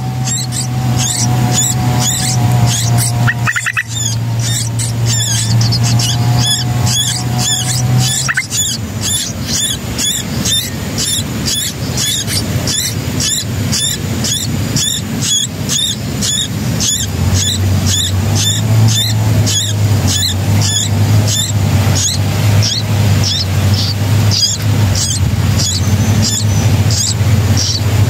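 Nestlings' high, squeaky begging calls, repeated quickly at about two to three a second. Under them is a low steady hum for the first several seconds, which drops out and comes back about two-thirds of the way in.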